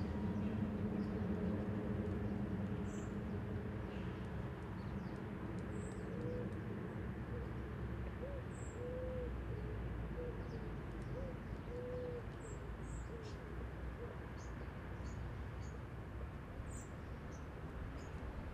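A pigeon cooing a phrase of several short, rounded notes in the middle, with small birds chirping high and briefly now and then, over a steady low rumble that is strongest at the start.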